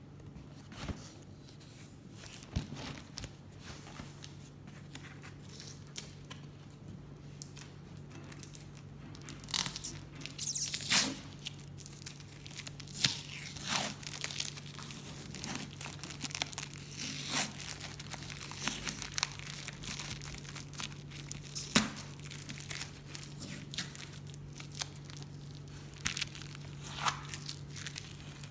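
Brown packing tape being peeled and ripped off a cardboard shipping box in a string of rips and crinkles, with the box being handled; the longest rips come about ten and thirteen seconds in. A steady low hum runs underneath.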